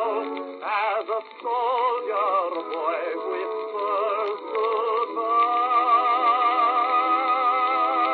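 Song from an old, thin-sounding recording: a singer with wide vibrato over accompaniment, settling into long held notes about five seconds in.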